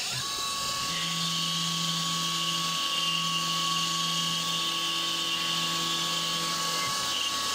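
Mikini 1610L CNC mill cutting low-carbon structural steel with a 1/8-inch two-flute carbide end mill at 5000 RPM under flood coolant. It makes a steady whine with a strong high hiss of coolant spray.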